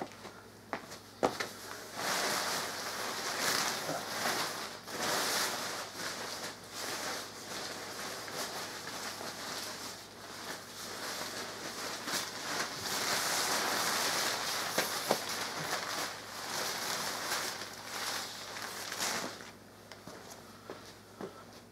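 Thin nylon fabric of a deflated Gemmy airblown inflatable snowman rustling and crinkling unevenly as it is unfolded and spread out by hand, from about two seconds in until shortly before the end. A few sharp taps come at the start.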